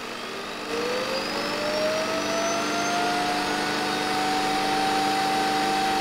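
Shark AI robot vacuum (UR2500SR) self-emptying dock running its suction motor to pull the dirt and debris out of the docked robot. Its whine rises in pitch as the motor spins up, just under a second in, then holds steady over a loud rushing noise.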